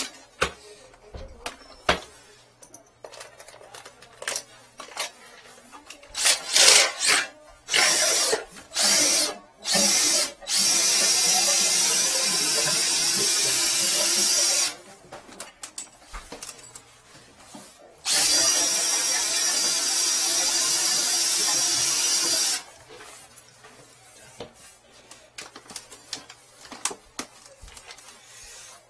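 Cordless drill spinning a flexible drain-cleaning shaft to clear a clogged sink drain. It gives a few short trigger bursts, then runs steadily twice for about four seconds each.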